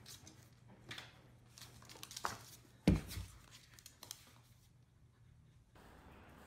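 A puppy's paws and claws clicking and scuffing on a wooden floor in irregular short taps, with a duller thump about three seconds in, over a low steady room hum.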